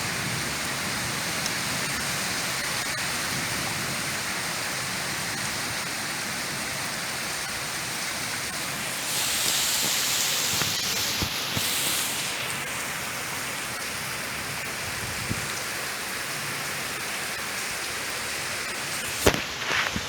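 Steady rain falling with a constant hiss, which swells brighter for a few seconds around the middle. A couple of sharp knocks come near the end.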